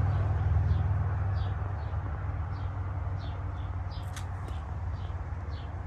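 A small bird chirping over and over, about one and a half chirps a second, over a low engine hum that slowly fades away.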